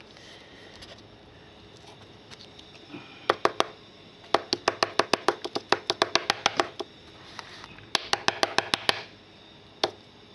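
Quick runs of sharp clicking taps, about nine a second, with a few single clicks before and after, from hands handling a hard plastic card holder.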